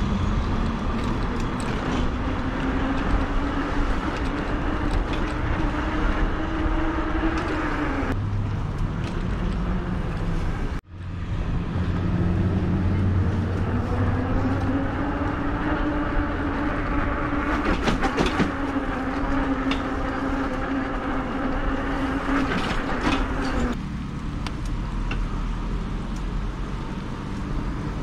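Lectric XP e-bike's hub motor whining under power, its pitch climbing with speed and holding, then falling away about eight seconds in. After a momentary dropout the whine climbs again and holds, then falls away near the end, over a steady low rumble of wind and road noise.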